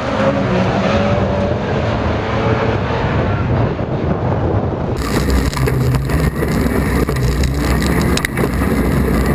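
A pack of Class 4 autograss cars running hard as they pull away across a dirt track, heard from trackside. About five seconds in, the sound changes to inside one car's cabin, its engine running at full throttle, with a sharp knock near the end.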